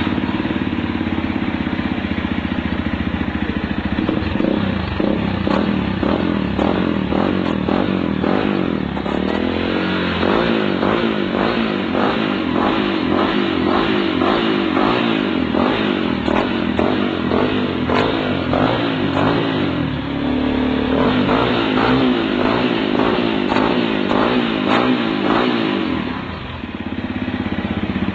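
Motorcycle engine breathing through a Coyote SS1 oval aftermarket exhaust, run up and down in repeated revs with the pitch climbing and falling, then settling back to a steady idle near the end.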